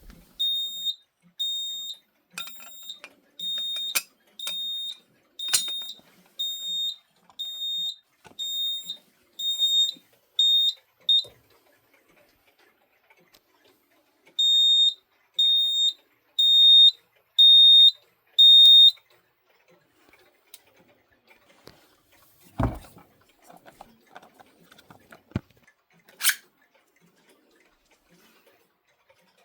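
Fire alarm signal sounding a high electronic beep about once a second for roughly eleven seconds, then five louder beeps after a short pause. Near the end come a single thump and a sharp click.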